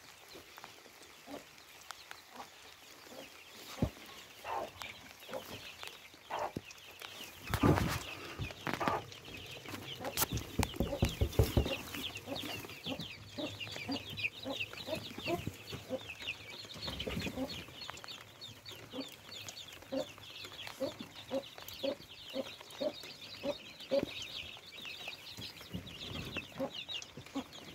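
Many chicks peeping in a continuous high chorus while a mother hen clucks low and steadily to them, about twice a second in the second half. A few loud knocks and rustles come around the middle.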